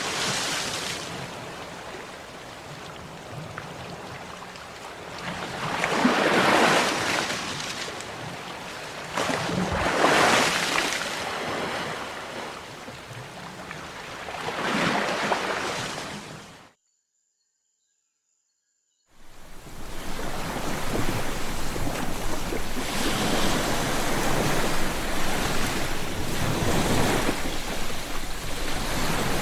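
Sea waves breaking and washing up the shore, each wave swelling and fading in turn, about four in the first half. About seventeen seconds in, the sound cuts out to total silence for a couple of seconds, then returns as a steadier, continuous surf.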